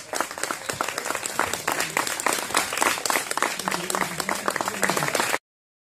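A crowd of guests applauding, dense clapping that stops abruptly about five seconds in.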